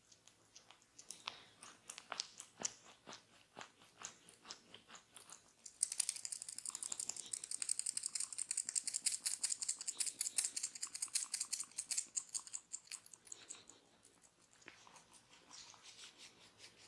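Close-up crackling and clicking of a barber's hands massaging skin and hair. The crackles come scattered at first, turn into a dense rapid crackle about six seconds in that lasts some seven seconds, then thin out again.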